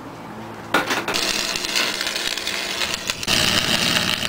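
Electric arc welding on a steel road-drag blade: a crackling hiss that starts suddenly about a second in and grows louder, with a steady high buzz, a little past three seconds in.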